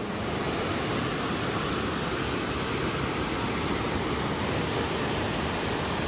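Waterfall on the Pliva river: water pouring down in a steady, even rushing noise that stays level throughout.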